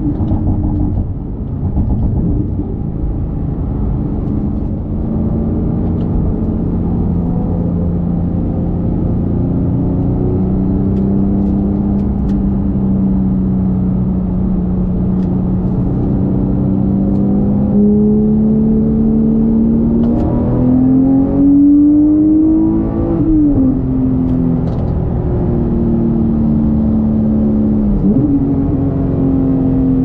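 Porsche 991.2 911 GT3 Touring's naturally aspirated flat-six engine under way, holding a steady note for most of the time. About 20 seconds in it pulls up through the revs with a rising note, then drops back sharply, and near the end there is a brief dip in pitch before it settles again.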